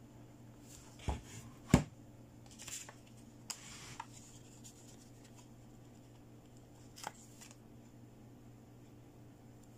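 Hands handling small plastic toy pieces: a few sharp clicks and taps, the loudest just under two seconds in, with short rustles between, and another click about seven seconds in.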